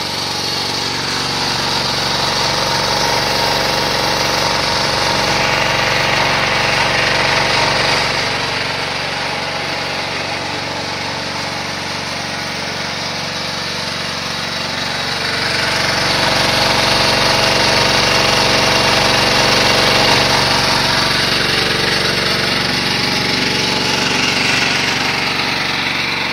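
Small portable generator engine, converted from petrol to bottled LPG with a gas regulator standing in for its carburettor, running steadily. It is louder for the first several seconds and again for a stretch past the middle.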